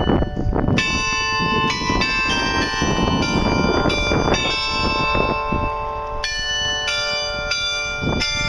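Carillon bells of the New Ulm Glockenspiel clock tower playing a tune. A new note is struck about every half second, and each one rings on over the next.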